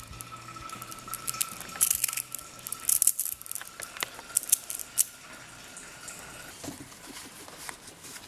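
Tiny Nano Dots neodymium magnet balls clicking and crackling against each other as a clump of them is squeezed and pulled apart in the hand, in several short bursts between about two and five seconds in.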